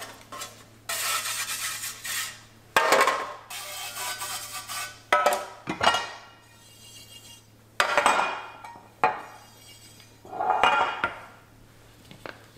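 Aerosol cooking spray hissing out in about five short bursts as loaf pans are greased, with metal and glass baking pans knocking and clinking against each other and the counter.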